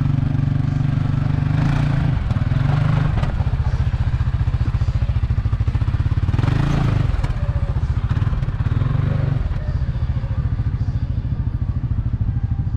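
CFMoto ZForce side-by-side UTV engine running steadily with a rapid even pulse, swelling briefly twice, once near two seconds in and again around the middle.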